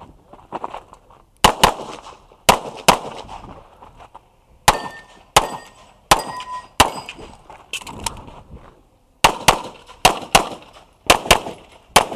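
Pistol shots fired in a rapid IPSC course of fire, about twenty in all, mostly in quick pairs with short pauses between groups, the first about a second and a half in. Heard close-up from a camera worn by the shooter.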